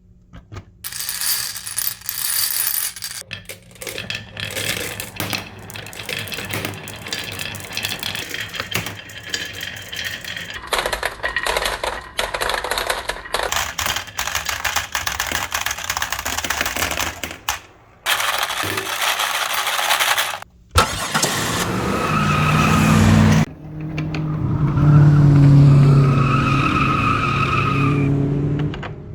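Marbles clattering and clicking as they roll down a wooden marble run, a dense run of small hard impacts with brief pauses. For the last several seconds this gives way to a pitched, steady toy sound.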